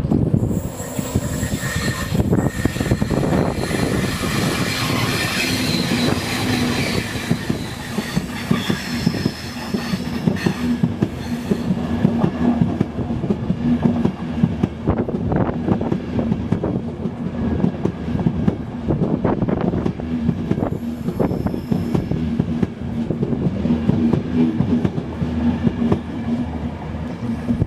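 InterCity 225 train, a Class 91 electric locomotive hauling Mark 4 coaches, passing along the platform. Its wheels click and clack over the rail joints, over a steady low hum, with a high-pitched whine through the first several seconds.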